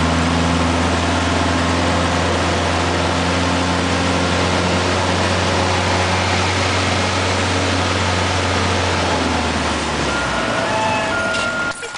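Single-engine Cessna's engine and propeller droning steadily as heard inside the cabin; the low drone fades away about ten seconds in.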